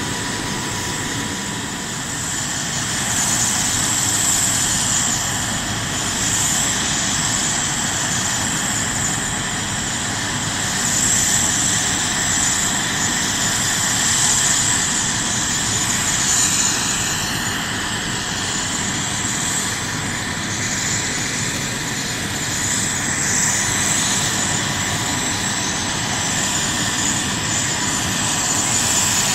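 Sikorsky S-92 helicopter's twin turboshaft engines running steadily on the ground: a steady whine over a broad rushing noise.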